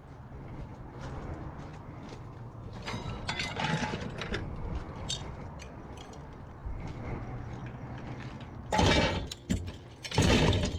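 Scrap metal being handled and sorted: scattered clinks and rattles over a steady low hum, with two louder clatters near the end.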